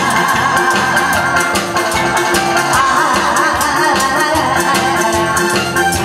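A woman singing into a microphone over amplified band music with a steady drum beat.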